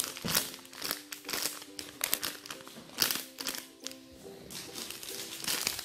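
Irregular crinkling and rustling as squishy toys are handled, over background music with held notes.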